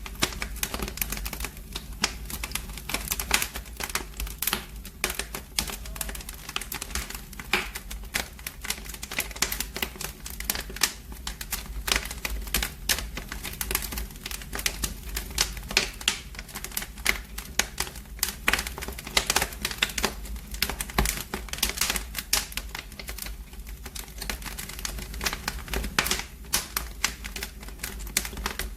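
Fire crackling in a fireplace: dense, irregular pops and snaps over a steady low rumble.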